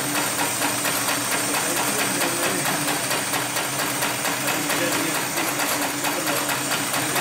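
Hightex #733BP heavy-duty sewing machine running steadily, its needle stitching spirally through a thick stack of stiff sisal buffing-wheel cloth: a fast, even clatter of stitches over a steady hum.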